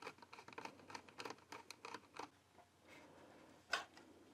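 Screwdriver turning out small screws on the sheet-metal case of a 3D printer's power supply: a rapid run of faint small clicks and scrapes, thinning out after about two seconds, with one louder click near the end as the lid comes loose.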